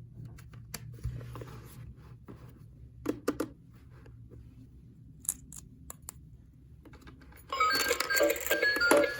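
Light clicks and taps of small plastic toy pieces being handled. About seven and a half seconds in, bright chiming music with steady tones starts and is louder than the handling.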